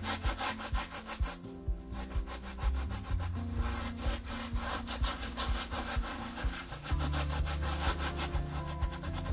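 A blue scrubbing pad rubbed quickly back and forth on a painted, sealed tile floor: a rhythmic rasping scrub. Background music plays underneath.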